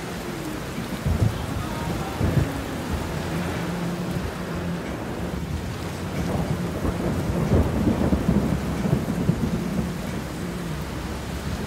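Heavy rain drumming on a car's roof and windshield, heard from inside the moving car's cabin, with a deep low rumble underneath. Brief thuds come about one and two seconds in, and the rumble swells louder from about six to nine seconds in.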